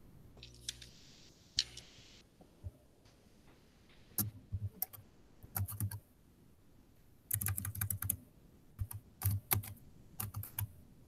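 Typing on a computer keyboard: several quick bursts of key clicks with short pauses between them, after a brief rustling hiss near the start.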